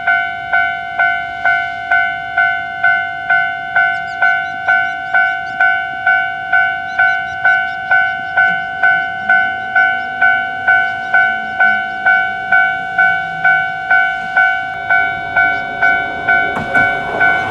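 Japanese railway level-crossing warning bell ringing: an electronic clang struck about twice a second at a steady pitch.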